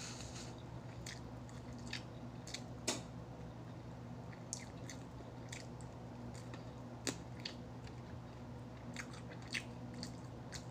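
Close-miked eating of fried chicken: scattered crisp crunches of bites and chewing, irregular, about a dozen sharp crunches over ten seconds, over a steady low hum.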